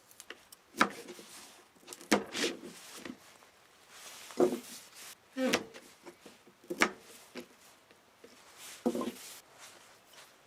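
Objects being handled: about six sharp knocks and clatters a second or more apart, with rubbing and shuffling between them.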